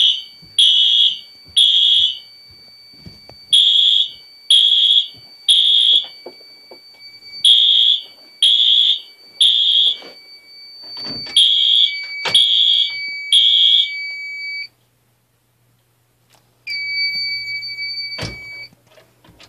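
Home fire alarm system in alarm, sounding the three-pulse temporal evacuation pattern: groups of three loud beeps repeating, over a steady high electronic tone. About fifteen seconds in it all cuts off. The steady tone comes back for about two seconds, with a click near its end, then stops.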